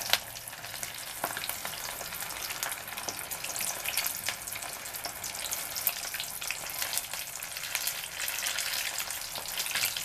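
Breaded stuffed peppers deep-frying in hot soybean oil: a steady sizzle with many small crackling pops.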